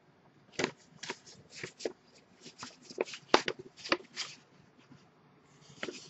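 A light being adjusted by hand: a quick run of irregular clicks and rattles, with a few more near the end.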